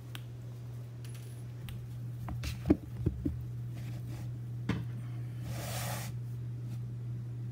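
Handling noise as the recording device is set in place: a few light clicks and knocks in the first half, then a brief rustle near the end, over a steady low hum.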